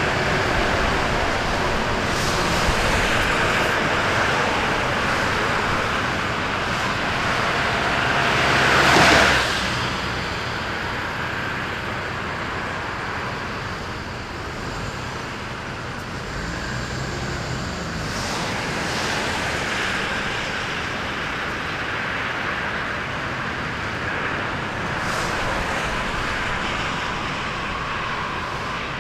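Road traffic: engines of a slow-moving column of tractors and cars, with one vehicle passing close about nine seconds in, the loudest moment.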